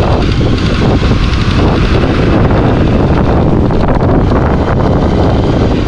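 Steady, loud wind rush on the microphone of a motorcycle being ridden along a road, with the bike's running noise underneath.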